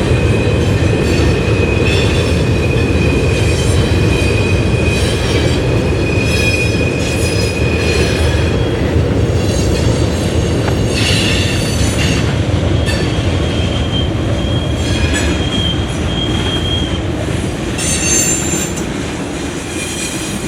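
Freight train cars rolling past with a steady heavy rumble, their steel wheels squealing: one thin high squeal holds for the first eight seconds or so, another comes about two-thirds of the way in, with shorter squeals between.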